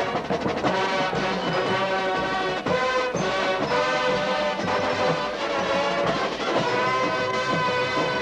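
Drum and bugle corps horn line playing sustained brass chords over the drum line's strokes.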